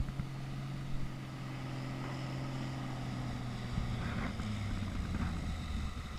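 Single-engine bush plane's propeller engine droning as it comes in to land on a gravel bar; its note drops lower about four seconds in as the plane touches down and rolls out.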